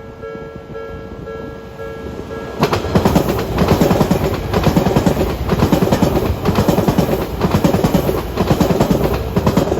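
A level-crossing warning bell rings steadily. About a third of the way in, an Odakyu Line train passes close by, its wheels clattering rhythmically over the rails, and the train covers the bell.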